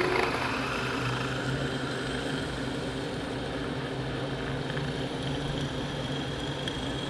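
Milling machine spindle running steadily while a reamer cuts through a hole in a small round metal part. A thin high whine joins in the second half.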